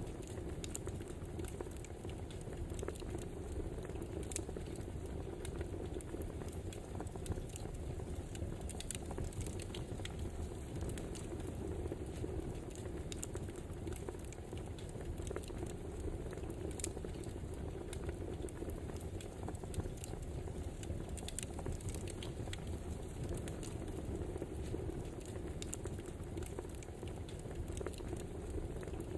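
Wood fire burning: a steady low rush with irregular sharp crackles and pops.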